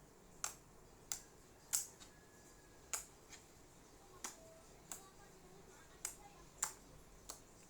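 Homemade slime being squeezed and pressed by hand, giving about ten sharp, irregular clicks and pops as air pockets burst.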